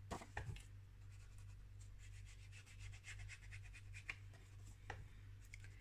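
Faint, scratchy rubbing of a foam ink blending tool worked along the edge of a sheet of patterned paper, inking the edges, in a series of soft strokes. A low steady hum sits underneath.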